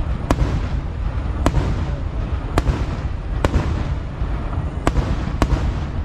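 Kerala vedikkettu fireworks going off: six sharp, loud bangs at roughly one-second intervals over a continuous low rumble and crackle of further explosions.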